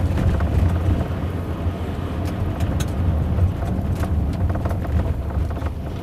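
Inside the cabin of a Land Rover Discovery Sport on the move: a steady low road rumble, with several sharp light knocks at uneven intervals. The knocks are the trim rattle from the passenger-side C pillar, a fault common on the Discovery Sport.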